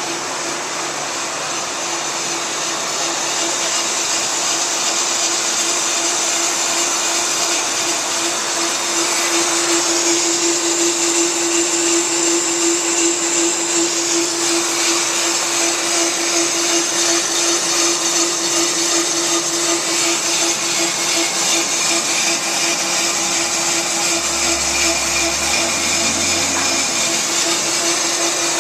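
On-car brake lathe running: a steady motor whine with a strong hum and hiss. It builds over the first several seconds, then holds steady.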